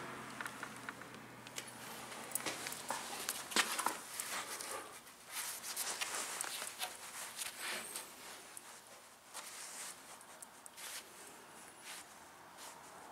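Pine board being handled and shifted against a metal rack, with scattered light knocks, taps and scuffs, and footsteps on a concrete floor.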